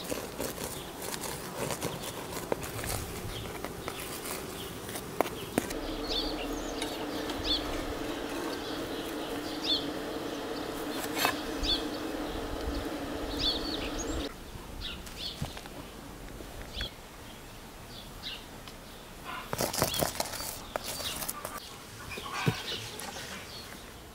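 Yard ambience with small birds chirping. A steady buzzing drone runs for about eight seconds in the middle. A spoon scrapes and clicks against a buttered flatbread in a clay dish at the start, and a burst of clattering comes near the end.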